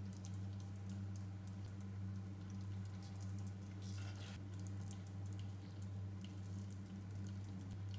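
Saucy chicken feet adobo being spooned onto a plate: faint wet squishes and small clicks, with a short swish about four seconds in, over a steady low hum.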